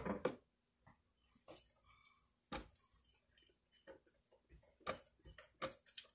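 Scattered light clicks and taps of a utensil against a blender jar as a thick bean mixture is stirred in it, a few single knocks spaced about a second apart.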